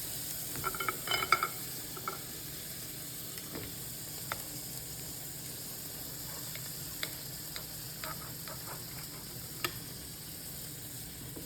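A faint, steady sizzle, likely butter in the hot pan, under scattered light clicks and scrapes of a knife and fork cutting into the cooked steak. The clicks come thickest about a second in, then only now and then.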